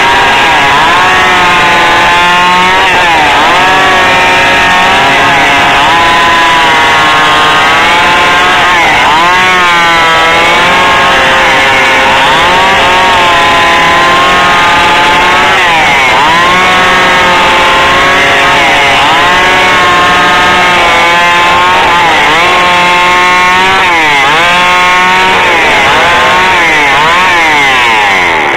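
Two-stroke chainsaw running at full throttle while ripping lengthwise through a log. Its engine pitch dips under load and recovers again and again, every couple of seconds, as the chain bites into the wood.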